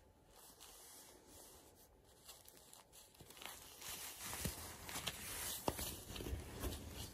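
Rustling and crinkling of a TENA disposable adult diaper and pyjama fabric being handled. It grows louder from about three seconds in, with a few sharp crackles.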